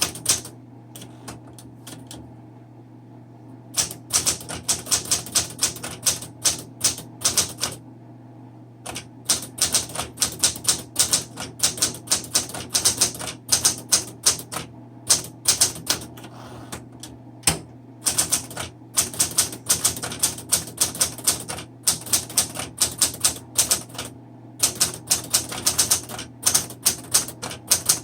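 A 1972 Smith Corona Sterling manual typewriter being typed on: fast runs of key strikes, each type bar snapping against the platen, broken by a few short pauses.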